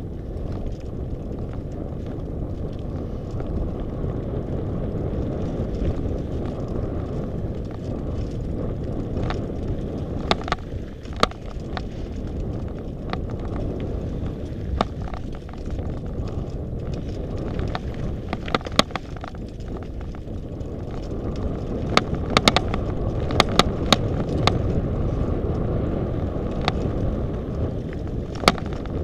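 Mountain bike running down a rocky dirt singletrack: a steady low rumble of tyres and air over the microphone, with sharp clicks and rattles from the bike jolting over stones, coming thickest in the second half.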